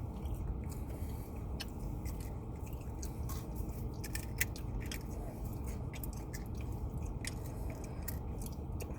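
A person chewing food, with many small scattered clicks and crunches of the mouth, over a steady low hum.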